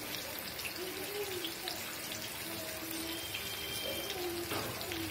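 Tiger prawns frying in hot oil in a kadai: a steady sizzle with fine crackling.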